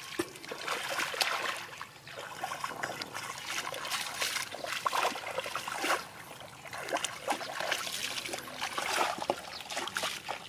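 Irregular splashing and squelching of hands groping through shallow muddy water, feeling in the mud for fish.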